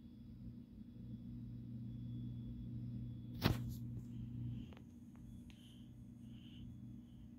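A faint steady low hum, broken by one sharp click about halfway through and a few lighter clicks after it; the hum drops away soon after the first click.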